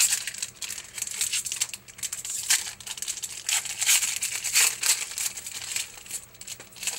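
A foil trading-card pack wrapper being torn open and crinkled, a dense run of irregular crackling and rustling.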